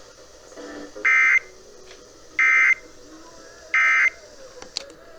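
Emergency Alert System end-of-message signal: three short bursts of SAME digital data tones, each about a third of a second long and about 1.3 seconds apart. They mark the end of the required weekly test alert.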